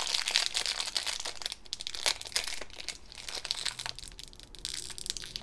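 A shiny plastic blind-bag packet crinkling and crackling as fingers crumple and tear it open. It is busiest in the first couple of seconds, then thins to scattered rustles.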